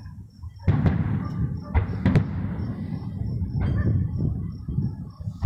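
Aerial fireworks going off: several sharp bangs, about a second in, a close pair around two seconds and another past three and a half seconds, over a continuous low rumble of booms.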